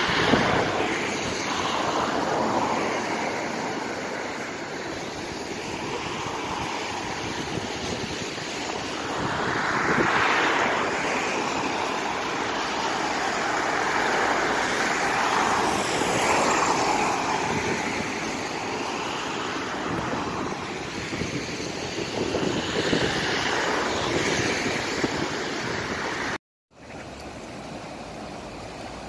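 Steady outdoor rushing noise of wind on the microphone and fast floodwater, swelling louder three times. Near the end it drops out for a moment and comes back quieter.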